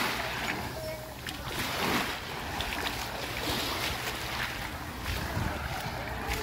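Surf washing onto a beach in gentle swells, with wind rumbling on the microphone.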